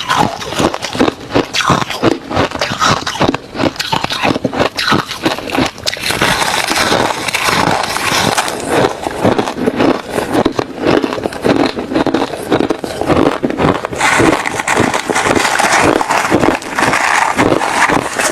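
Refrozen crushed ice mixed with shaved ice being chewed: rapid, continuous crunching, packed more densely after the first few seconds.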